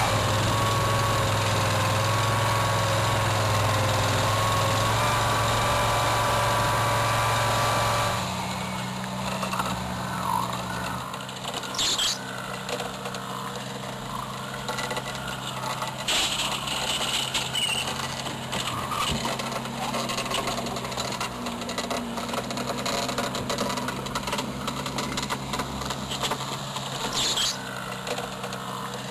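An engine running steadily. About eight seconds in it gives way abruptly to a quieter, even engine hum, with a few sharp knocks or clanks scattered through it.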